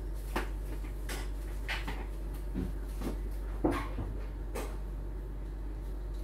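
A handful of short, light knocks and clacks of small household objects being handled and set down, about six spread over a few seconds, over a steady low hum.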